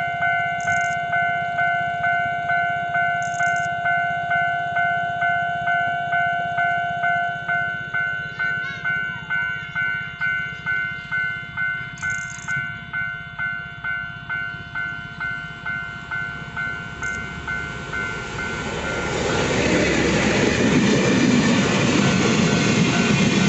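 Level-crossing warning bell ringing at about two strokes a second; about nineteen seconds in, the loud rumble of a locomotive-hauled freight train passing close by takes over and drowns the bell.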